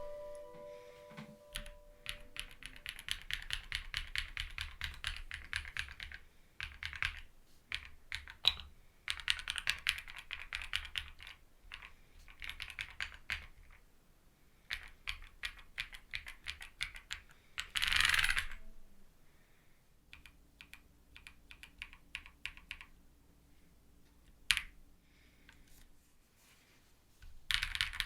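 Keystrokes on a Kezewa Enter67 gasket-mount aluminium mechanical keyboard with PH Studio Aaniya switches: keys pressed in quick runs of clicks with short pauses between them. A louder, longer clatter comes about two-thirds through.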